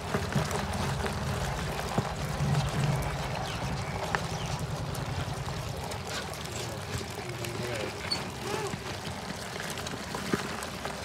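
Live crabs crawling over one another in a plastic tub, their legs and claws making scattered clicks and scratches on the plastic, over a steady low hum.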